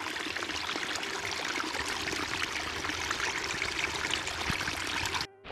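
Small stream running steadily with a continuous rush of water; cuts off suddenly near the end.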